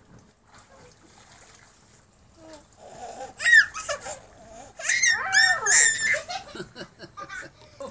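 A toddler laughing and squealing with delight in several high-pitched peals, starting about three seconds in.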